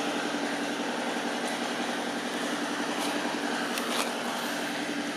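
Steady engine hum, like a motor idling, with a few faint clicks about three and four seconds in.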